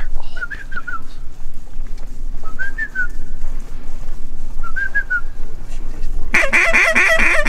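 Waterfowl calling: short groups of three or four whistled peeps every couple of seconds, then about six seconds in a loud, rapid run of honking calls.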